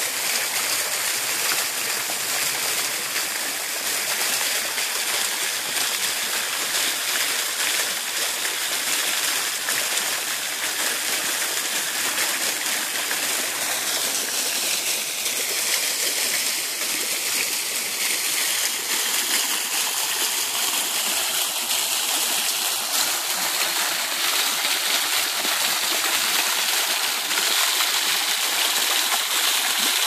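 Steady hiss of water falling and splashing into a pond, from a small fountain jet and the thin streams of a nearby cascade.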